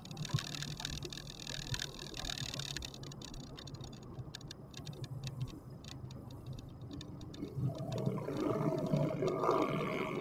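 Steady low hum and road noise of a moving vehicle picked up by its dashcam, with scattered light clicking; the noise grows louder and rougher near the end.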